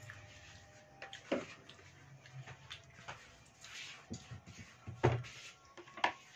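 A few light knocks and clicks of household handling in a quiet room, spread out with gaps between them: the clearest about a second in and two close together near the end.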